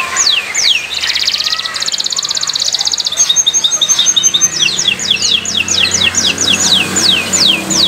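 Domestic canary singing: a series of repeated down-slurred whistles, then a rapid trill from about one to three seconds in, a short run of high clipped notes, and more quick down-slurred whistles to close.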